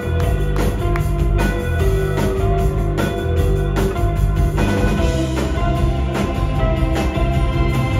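A live rock band plays an amplified song with electric guitars and a drum kit keeping a steady beat.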